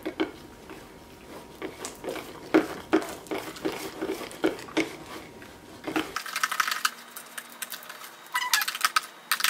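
A metal spoon stirring thick fluffy slime in a glass bowl, clinking and scraping irregularly against the glass. The slime has beans and wood pieces mixed in. About six seconds in, the sound changes to sharper, squeakier scraping.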